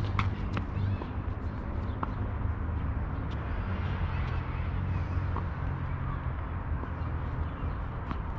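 Tennis racket striking the ball with a sharp pop at the very start, followed by a few fainter scattered ball hits and bounces on the hard court, over a steady low background rumble.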